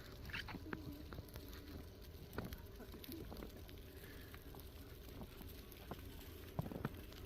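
Faint outdoor ambience: a steady low rumble with scattered knocks and clicks, and distant voices now and then.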